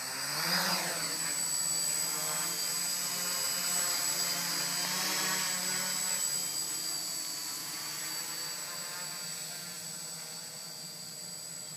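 A quadcopter's electric motors and propellers spin up with a rising whine about half a second in, then buzz and whine steadily as it lifts off and flies low. The sound slowly fades near the end as it moves away.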